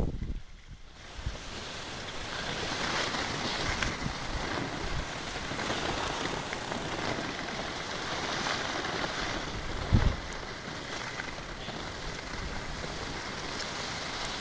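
Skis sliding and scraping over snow in a steady hiss, with wind on the microphone and one low thump about ten seconds in.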